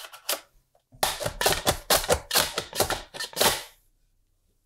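A sweet potato in a food guard pushed quickly back and forth over a mandoline slicer's crinkle-cut blade: a run of slicing strokes, about four a second, lasting nearly three seconds and stopping well before the end. A few faint clicks come just before the strokes begin.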